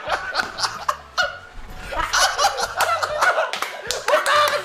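Hearty laughter from a group of people, with sharp hand claps mixed in; it drops off briefly about a second in, then builds again.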